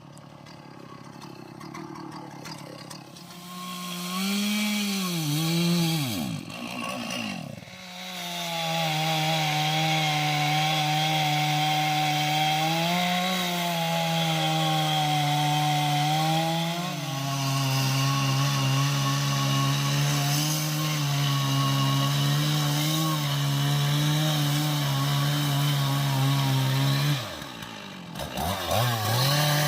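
Chainsaw revving up and cutting into jackfruit wood, its engine held at high speed through a long cut. The pitch sags a little partway through as the chain bites, and the engine drops off and picks up again twice.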